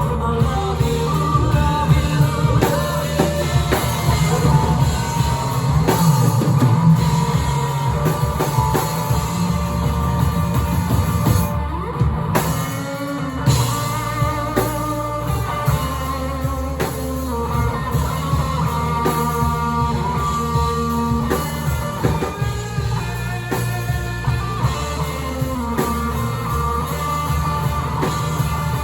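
Rock band playing: electric guitar over bass and drum kit, with held, wavering lead notes.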